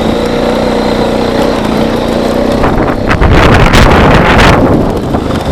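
Honda ATV (four-wheeler) engine running steadily. About three seconds in, a loud rush of wind noise on the microphone lasts for a second and a half and is the loudest thing heard.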